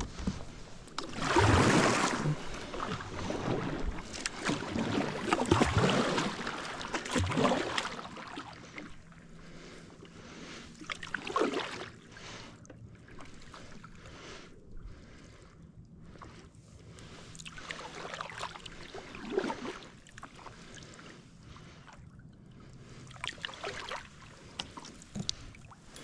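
Kayak paddle strokes swishing and splashing in calm water: a quick run of strokes through the first eight seconds or so, then a quieter glide broken by a few single strokes.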